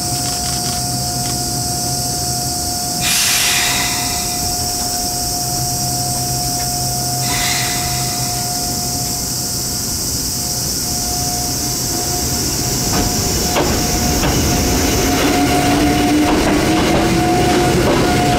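Electric mountain-railway train standing at a platform with a steady hum, two short bursts of air hiss, then pulling away about two-thirds in, a motor whine rising in pitch over growing wheel rattle.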